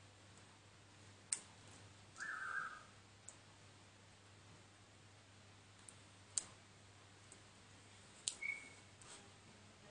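A few faint, sharp, isolated clicks from fingers handling rubber loom bands, over a low steady hum. A short high chirp sounds about two seconds in.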